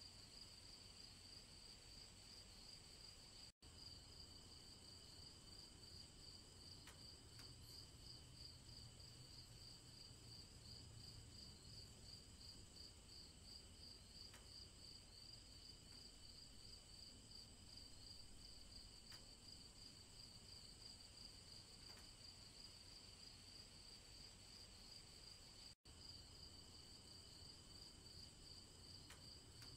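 Faint, steady chorus of crickets chirping in a fast, even pulse. The sound drops out to silence for an instant twice, about three and a half seconds in and about four seconds before the end.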